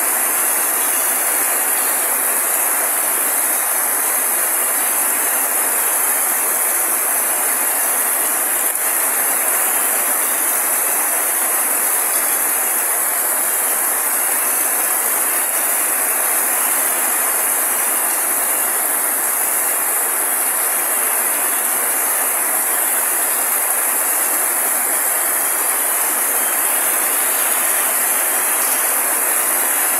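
Heavy rain falling steadily on leaves and grass: a loud, even hiss of dense pattering that doesn't let up.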